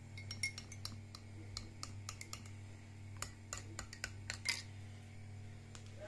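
Dishes, glasses and cutlery being handled: a string of light, irregular clinks and taps.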